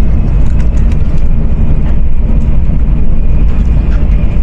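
Steady low rumble of a Shinkansen bullet train running.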